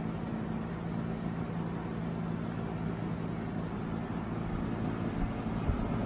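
Airworks 20-inch box fan (Lasko 20BA, PSC motor) running steadily: an even rush of air over a low motor hum. Near the end, the fan's airflow starts buffeting the microphone with an uneven low rumble.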